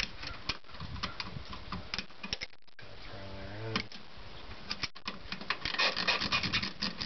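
Rubber hoses being twisted and worked off the fittings around a loosened air flow meter in an engine bay: rubbing and scraping with scattered clicks. Past the middle these grow into a quick, dense run of clicks.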